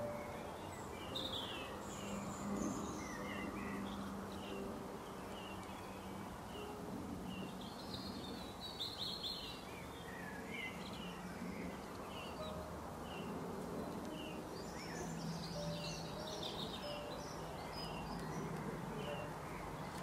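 Birds chirping with short, scattered calls throughout, over a steady outdoor background hiss and a faint low hum.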